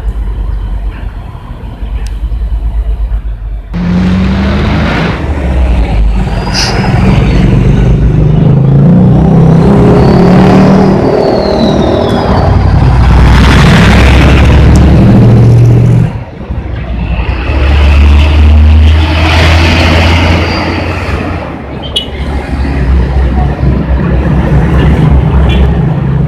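Heavy diesel trucks running loudly as they pass close by on a road, with other traffic. There is a quieter engine sound for the first few seconds before a sudden change, and a brief dip partway through before the next truck comes by.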